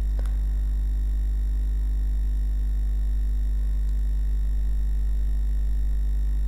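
Steady low electrical hum with a ladder of fainter higher tones above it, unchanging throughout; a faint click about a quarter second in.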